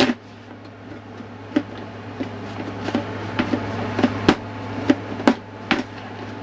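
Kitchen utensils and a plastic storage container being handled and put away: a string of about a dozen sharp, irregular knocks and clatters over a steady low hum.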